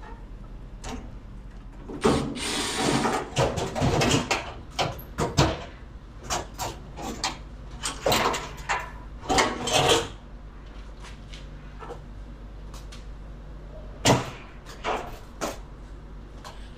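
Clicks, knocks and scraping as hands work on a dryer's wiring and sheet-metal cabinet, unplugging wire connectors and moving parts. The handling is busy from about two to ten seconds in, then comes again in a shorter spell near the end.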